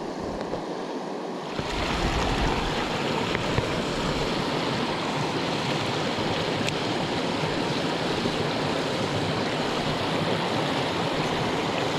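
Rushing creek water, a steady wash that grows louder about two seconds in and then holds even.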